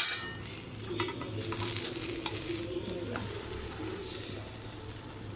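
Bread sandwich frying in butter in a non-stick pan, a steady sizzle, with a few light clicks of steel tongs against the pan.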